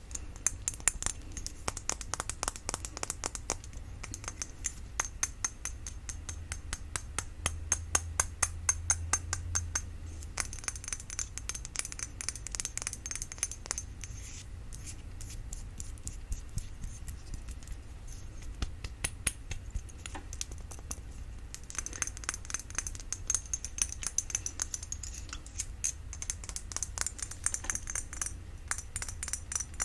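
Rapid light tapping on a glass cologne bottle, many crisp clicks a second, sparser for a few seconds in the middle.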